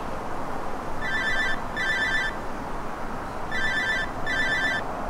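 Phone ringing with a double-ring pattern: two pairs of short trilling rings, each pair followed by a pause, over steady background noise.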